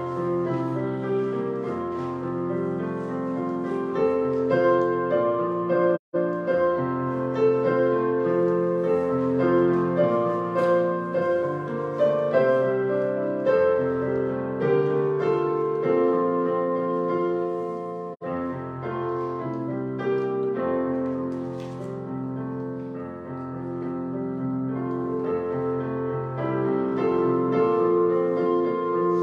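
Solo piano playing a slow piece of sustained chords. The sound cuts out for an instant twice, about six seconds in and again near eighteen seconds.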